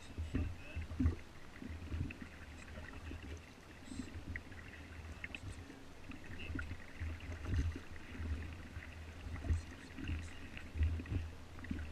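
Inflatable dinghy being rowed over calm water: irregular low knocks and rumbles from the oars and hull, with scattered light clicks and faint high chirps.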